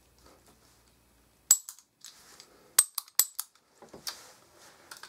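Toy cap gun being triggered: one sharp snap about a second and a half in, then three quick snaps close together, each with a short metallic ring, followed by handling noise.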